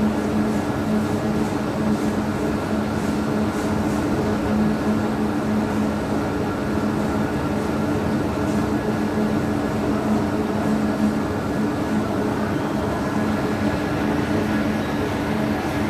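Sancassiano spiral mixer running with its steel bowl turning: a steady mechanical hum with a constant low drone.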